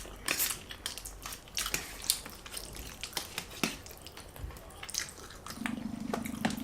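Close-up wet eating sounds of spaghetti and cheese fondue: scattered smacks, slurps and small clicks. About two thirds of the way in, a low steady buzz starts and keeps going.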